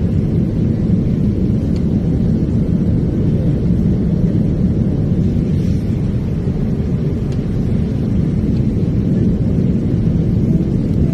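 Airliner cabin noise in flight: a steady low rumble of the jet engines and rushing air heard from inside the cabin.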